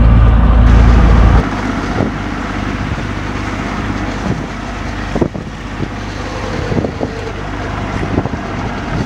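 A steady low rumble for about the first second and a half. Then wind and sea noise on a small sailing yacht in rough weather: wind buffeting the microphone and waves rushing past the hull, with scattered small knocks.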